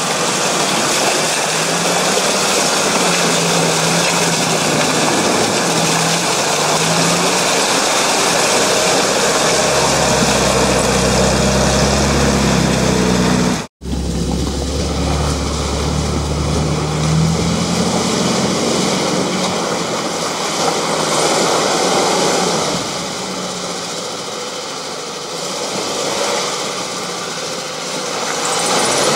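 UAZ-469 off-road engines revving up and down as the vehicles labour through deep mud and an ice-covered, water-filled track. The sound cuts out suddenly and briefly about halfway.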